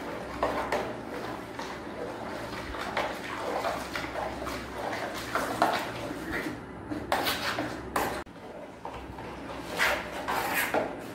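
Soapy bubble solution being stirred by hand in a plastic tub, the water swishing and sloshing unevenly, with a few short louder sounds in the second half.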